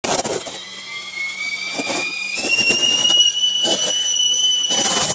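Whistling kettle at the boil: a whistle that rises in pitch over the first couple of seconds, jumps up a step, then holds steady, with a few short knocks and clatters over it.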